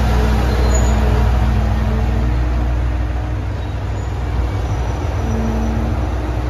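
ET122 diesel railcar's engine running, a steady low rumble with a hum that fades a couple of seconds in and comes back near the end.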